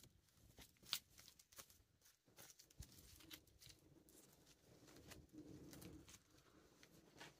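Faint scattered clicks and rustles of hands working a turkey carcass, with a faint low steady sound coming in about three seconds in.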